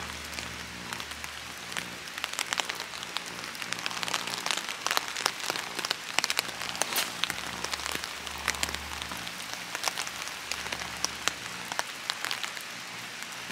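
Steady rain falling, with frequent sharp ticks of drops striking close by.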